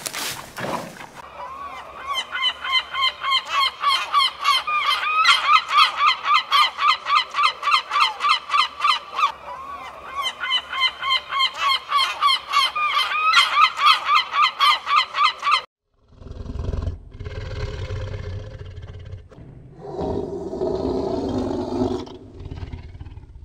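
A bird's honking calls, fast and evenly repeated at several a second, with a short break partway; they stop abruptly. After that comes a low rumbling sound with a deeper growl-like call near the end.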